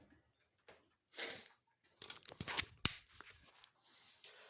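Rustling and handling noises as someone walks to the target: a short rustle about a second in, then a cluster of sharp clicks and crinkling about two to three seconds in.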